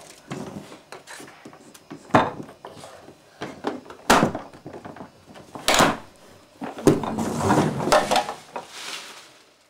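Hard plastic knocks and clacks from a toy garbage truck being handled and pushed over cardboard: several sharp clacks spaced a second or two apart, then a longer stretch of clattering near the end.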